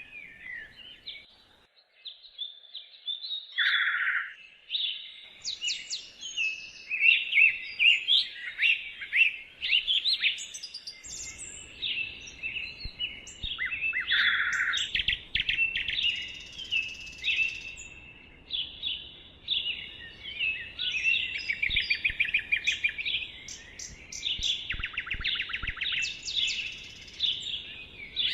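Several songbirds singing and chirping at once, a dense chorus of quick trills, rapid rising and falling notes and short whistles. A faint low background rumble joins about eleven seconds in.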